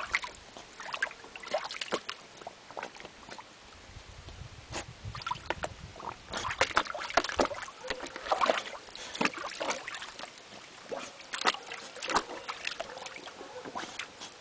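A pit bull's paws and muzzle splashing in shallow water in a plastic kiddie pool as it noses along the bottom for berries, with many short irregular splashes and sloshes.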